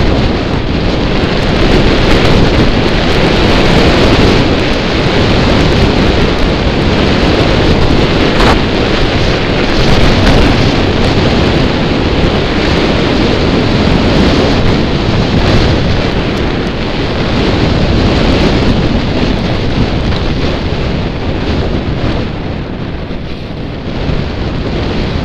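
Loud, steady wind rushing over the microphone of a camera carried by a skier going downhill, mixed with the skis sliding on snow.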